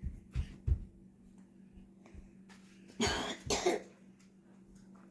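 Two short coughs about three seconds in, after a few low thumps near the start, over a steady low hum.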